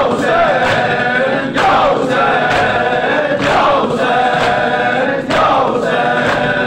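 A crowd of men chanting a mourning lament (noha) in unison, with hand-on-chest beating (matam) striking together about once a second.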